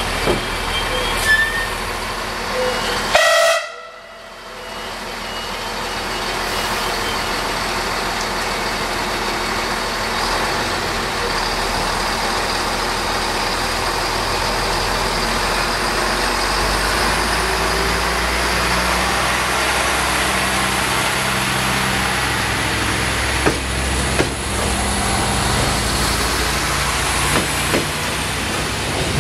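Siemens Desiro diesel multiple unit passing close by: a steady rumble of engine and wheels on rail that builds over several seconds, with the diesel engine's note coming through more strongly in the second half. A short horn toot sounds about three seconds in.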